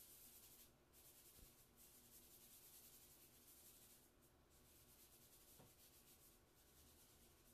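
Faint papery hiss of fingers and palm rubbing charcoal into Bristol paper to blend it, broken by a few short pauses.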